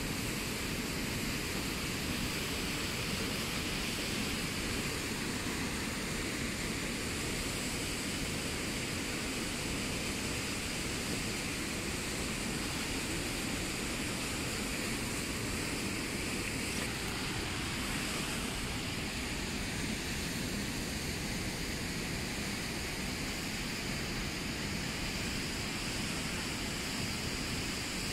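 Steady rush of a fast-flowing river running over shallow riffles, a constant noise without breaks.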